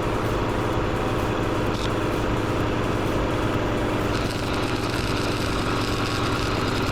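Welding arc running a continuous bead to join a go-kart wheel rim to its hub, a steady crackle over a buzzing hum.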